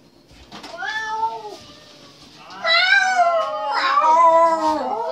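People imitating a cat, meowing in drawn-out, sung, pitched glides: a short meow about a second in, then a longer, louder run of meows from about two and a half seconds.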